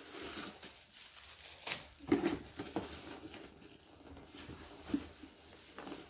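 Cardboard packaging rustling and scraping as a printed box of kitchen utensils is worked out of a brown cardboard box, with several sharper knocks and scrapes among the rustling.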